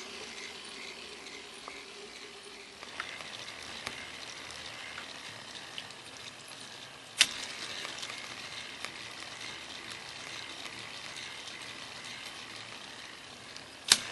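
K'nex plastic gear train of a torque-sensitive automatic transmission running, a steady rattling clatter of meshing plastic gears with many small clicks. A low hum drops out about three seconds in, and two sharp loud clicks stand out, about halfway through and near the end.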